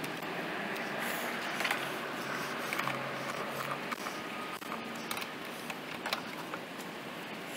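Scattered clicks of a small ratchet wrench working a bolt in a car's engine bay, with light metallic clinks of tool handling.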